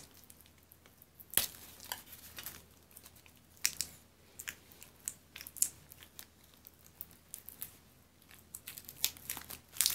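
Plastic shrink wrap being peeled and torn off a tool's packaging: scattered, irregular crinkles and crackles with quiet gaps between them, coming thicker near the end.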